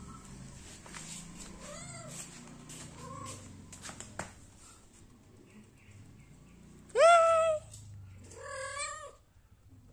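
Kitten meowing: two faint short meows in the first few seconds, then a loud meow about seven seconds in, followed by a second, longer one a second later.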